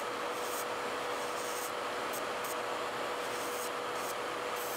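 Electric nail drill with a sanding band bit whining at a steady pitch as it grinds gel off a fingernail, the scratchy rasp of the band on the nail coming and going. A nail dust collector's fan runs steadily underneath.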